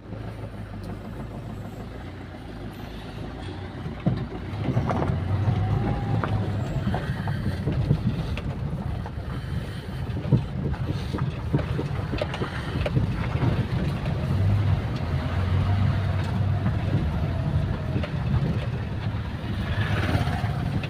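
Diesel car's engine and tyre noise heard from inside the cabin while driving a rough road, a steady low rumble that gets louder about four seconds in, with a few knocks from the road.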